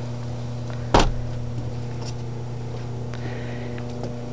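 A single sharp knock about a second in, over a steady low hum, with a few faint clicks afterwards.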